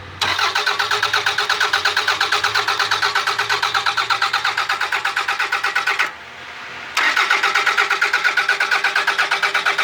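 2001 Toyota Camry engine cranking on the starter without catching, in two long attempts with a short break between: an even rhythmic churning of about six beats a second that stops without the engine firing. It cranks but will not start.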